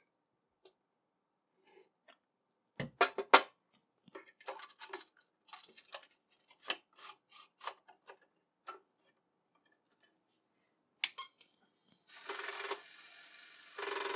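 Plastic clicks and rattles as a head-cleaning disk, wetted with alcohol, is handled and pushed into an Apple III's built-in 5.25-inch floppy drive. Near the end comes a sharp click, then the drive running with a steady whir for about two seconds as it spins the cleaning disk.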